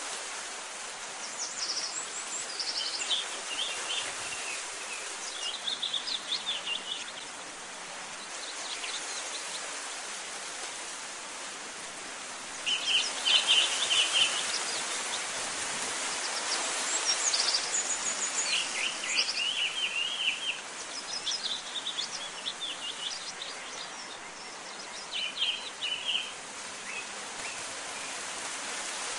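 Birds chirping and singing in short, separate phrases every few seconds over a steady background hiss.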